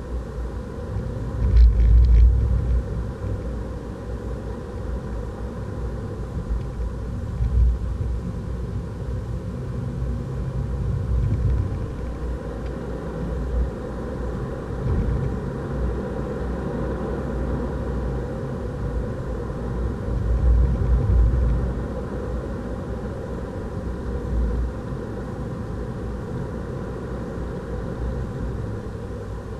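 Renault Clio RS 200's 1.6-litre turbocharged four-cylinder engine and tyre noise heard inside the cabin at track speed: a continuous low rumble. It swells louder around two, seven and twenty seconds in.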